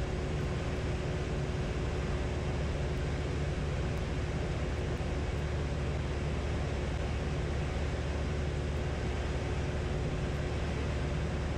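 Single-engine light aircraft's piston engine and propeller droning steadily, heard inside the cockpit in level cruise, with a faint steady hum over the drone.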